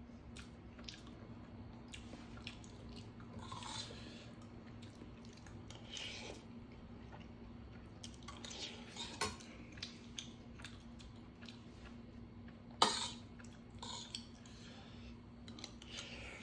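Metal spoon clinking and scraping against a stainless steel bowl during a meal, with chewing between the scattered clinks. The loudest clink comes about thirteen seconds in.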